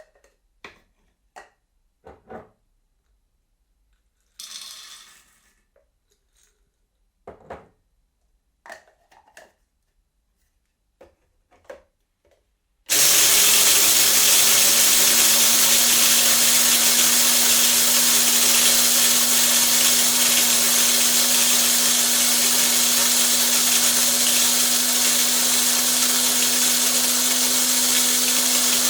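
Electric coffee grinder: first a few light clicks and knocks and a brief rattle of coffee beans being poured in, then the motor switches on about thirteen seconds in and grinds steadily and loudly with a constant hum.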